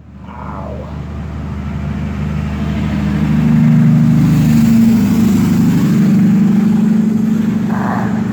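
A motor engine droning, growing louder over about three seconds and then holding steady.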